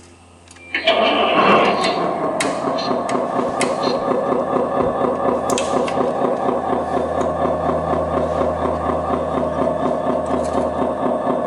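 Simulated diesel engine sound from an RC XD wheel loader's sound module, played through its newly replaced speaker: it starts up about a second in, then idles with a steady, rhythmic chug.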